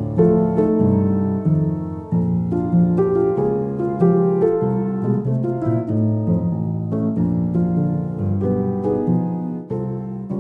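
Background piano music, a gentle melody of steadily played notes.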